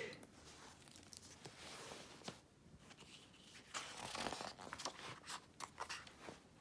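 A hardcover picture book being opened and its pages turned by hand: soft paper rustling with a few light clicks, loudest about four seconds in.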